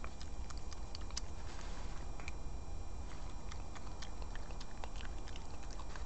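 European badger eating food off the ground, with irregular sharp crunches and clicks of chewing and snuffling, over a steady low background rumble.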